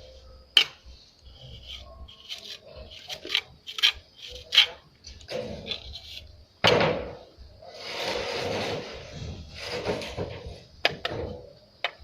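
Trowel scraping and tapping as cement render is worked onto a wall: irregular rasping scrapes and sharp knocks, with the longest run of scraping in the second half.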